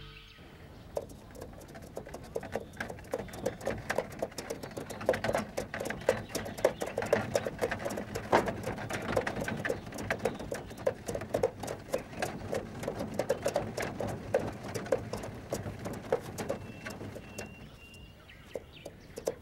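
A dense, irregular patter of small taps and clicks that builds up after the first second and thins out near the end, with a faint thin whistle briefly near the end.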